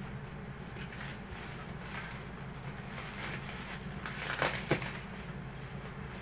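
Plastic bubble wrap being pulled and peeled off a cardboard box, crinkling and crackling, loudest in a couple of sharp crackles about four and a half seconds in. A steady low hum lies underneath.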